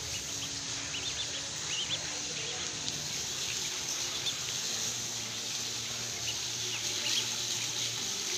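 Ducklings peeping: scattered short, high peeps, a few at a time, over a steady background hiss.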